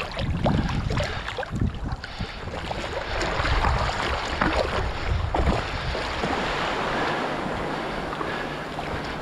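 Waves washing in the shallows, with wind buffeting the microphone.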